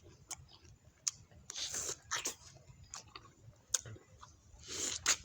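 A person eating a mango: wet mouth clicks and smacks at irregular intervals, with two longer hissing sounds, about a second and a half in and near the end.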